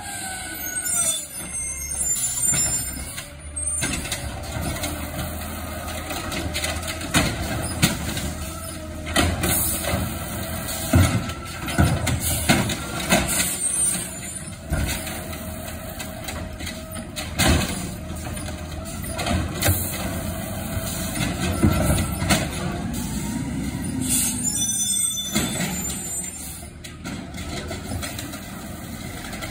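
Automated side-loader garbage truck working a curb line: the diesel engine runs steadily under hisses typical of air brakes and repeated sharp knocks and bangs from the hydraulic arm and carts.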